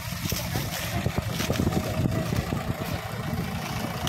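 Diesel tractor engine running steadily under load as it powers a tractor-mounted sugarcane grab loader lifting a bundle of cut cane.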